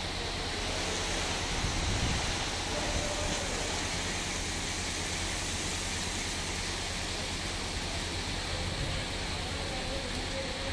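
Heavy rain falling steadily: a dense, even hiss with a low rumble underneath.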